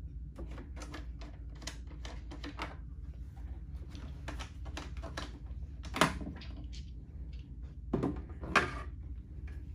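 Hand handling of a hard plastic equipment case: screws at the corners of the back panel being undone, with a steady run of small clicks and scrapes and louder knocks about six seconds in and twice near the end.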